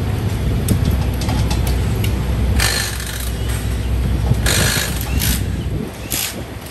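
Pit crew tools at work on a Top Fuel Hemi engine: metal clinks and rattles with several short hissing bursts, over a steady low rumble that stops about six seconds in.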